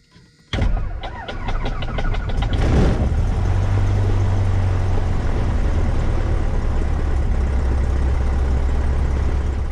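A Cessna 150's Continental O-200 four-cylinder engine is cranked over by the starter about half a second in, with about five strokes a second. It catches after roughly two seconds and then runs steadily.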